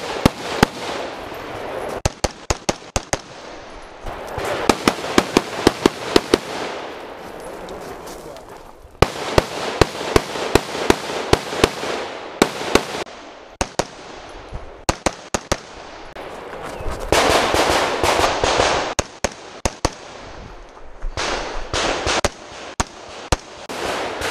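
Semi-automatic rifle fire in rapid strings of several shots, with short pauses between strings.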